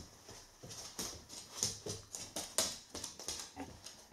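A goldendoodle's claws clicking on a bare wooden floor as she trots off carrying a large plush toy: a quick, uneven run of light clicks, several a second.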